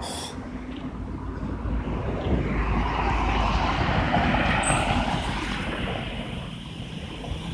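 Strong gusty wind buffeting the microphone, with a whoosh that swells up and dies away through the middle.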